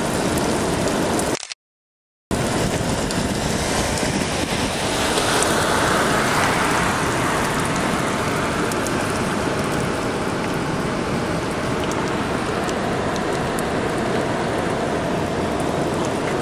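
Steady rain falling, an even hiss with faint ticks of drops hitting nearby surfaces. The sound cuts out completely for under a second about a second and a half in.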